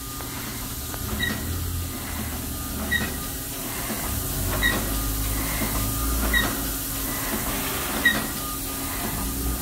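Industrial thermoforming machine running: a steady low rumble and hiss, with a short high chirp repeating about every 1.7 seconds.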